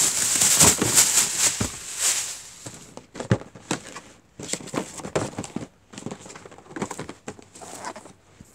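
Handling noise: rustling, loudest in the first two seconds, then scattered light taps and knocks.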